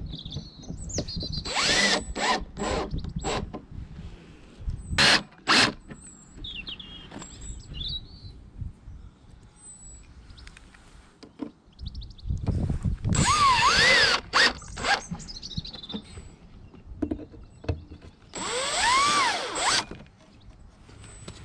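Cordless drill driving screws into a brass latch on a wooden crate, in a series of short trigger bursts. In two longer runs the motor's pitch rises and then falls as the trigger is squeezed and eased.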